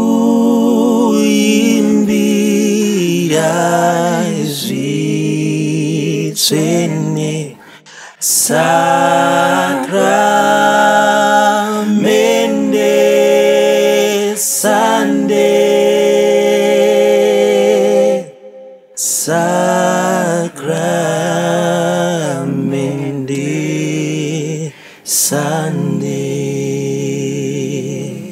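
Three men singing a Shona hymn to the Holy Sacrament a cappella, in long held phrases with wavering notes and short breaths between them. The singing stops just before the end.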